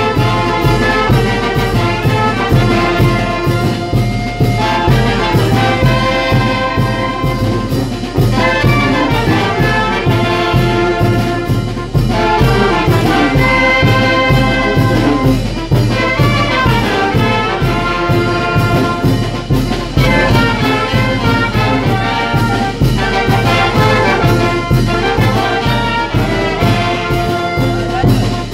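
Brass band playing a lively tune with trumpets and trombones over a steady beat.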